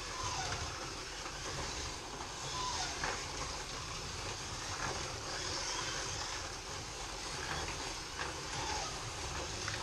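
Scalextric slot cars running laps on a plastic track: a steady whir of their small electric motors and tyres, with a few faint clicks.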